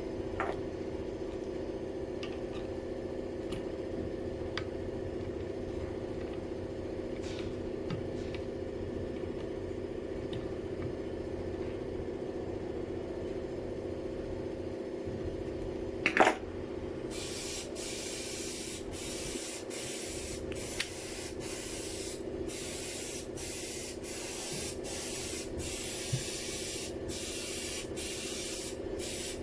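Airless paint sprayer (395 PC) running with a steady hum. There is a sharp click about sixteen seconds in. From about seventeen seconds the spray gun fires a string of short hissing bursts, on and off about a dozen times.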